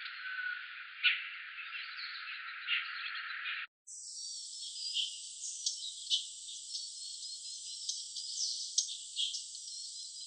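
Outdoor ambience field recordings of insects and chirping birds, sounding thin with no bass. About three and a half seconds in it cuts out briefly and switches to a second, higher-pitched recording of bird chirps over insect noise.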